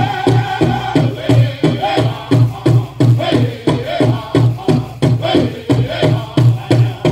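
Powwow drum group singing a jingle dress song: voices chanting together over a large drum struck in a steady beat, a little over two beats a second.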